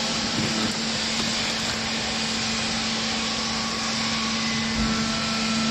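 Hydraulic clothes baler's electric motor and pump running with a steady hum and hiss.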